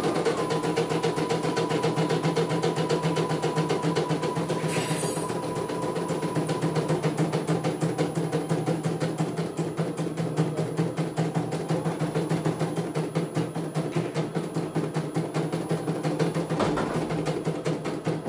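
CNY E900 computerized embroidery machine stitching out a design: a fast, even clatter of needle strokes. A thin steady tone runs for the first several seconds.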